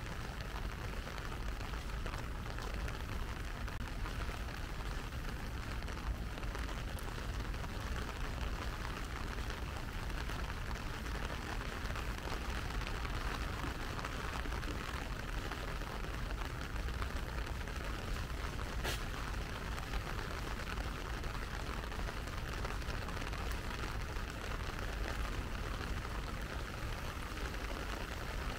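Steady rain falling, a continuous even hiss of drops with no let-up.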